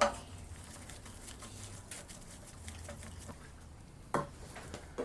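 Small metal parts of a pressure washer being handled and fitted during reassembly. There is a sharp knock at the start, scattered light clicks, and another knock about four seconds in, over a faint low hum.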